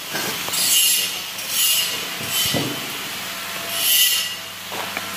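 Handheld fiber laser welder firing in short bursts: a hiss with a faint high tone, about four or five times, each lasting roughly half a second.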